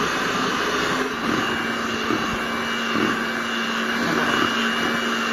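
Electric hand mixer running steadily at a constant pitch, its beaters working flour into an egg, oil and sugar mixture to make cake batter.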